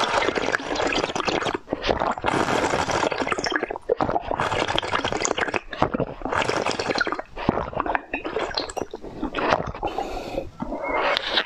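A person slurping and sucking a drink from a glass cup, close to the microphone, in several long noisy pulls with short breaks between them.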